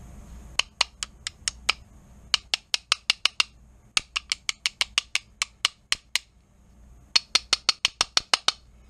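Small mallet tapping tight trigger group pins into a Ruger 10/22 receiver: four quick runs of sharp taps, several a second, with short pauses between runs. The pins are stiff because it is the first time they have been out.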